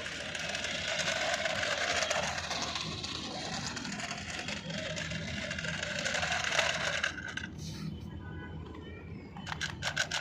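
A toy RC car's small electric motor and plastic gears whirring, mixed with background music. A few sharp clicks come near the end.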